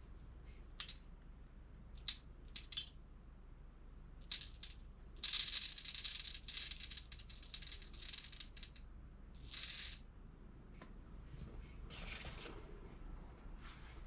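Number 6 lead shot pellets rattling as they are poured and measured for a shotshell load: a few small clicks and rattles, then a dense pour lasting about three and a half seconds from about five seconds in, with two shorter pours after it.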